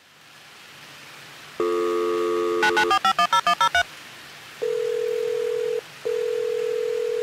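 Telephone line sounds: a dial tone, then a quick run of about eight touch-tone (DTMF) digits being dialled, then two long steady beeps as the call goes through.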